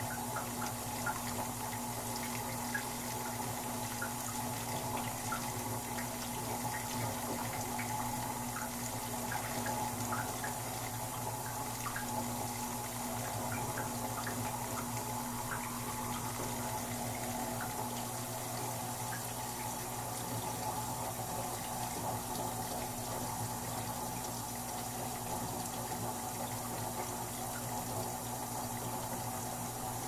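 Old washing machine filling with water: a steady rush of water into the tub over a constant low hum. Small splashes and drips are heard through the first half.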